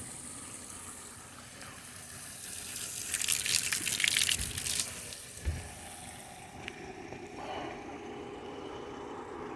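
Natural mountain spring water running from its outflow in a steady hiss, swelling into a louder splashing rush about three seconds in for a couple of seconds. A couple of soft thumps follow, then a steady low hum joins in.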